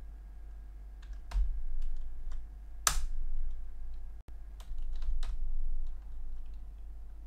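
Computer keyboard typing: scattered, irregular keystrokes, one much louder than the rest about three seconds in, over a steady low hum.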